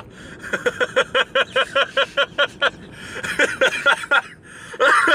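Two men laughing hard inside a car, a rapid run of short "ha-ha" pulses, about six a second, that breaks off briefly past the middle and starts again near the end.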